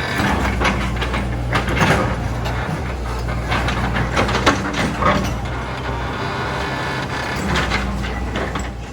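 A backhoe's diesel engine running steadily under load, with irregular clanks and knocks as the bucket works rock and dirt.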